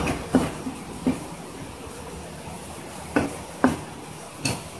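A filleting knife and fugu knocking against a plastic cutting board: about six sharp, irregular knocks with a pause in the middle, over a steady hiss of water running from a hose onto the board.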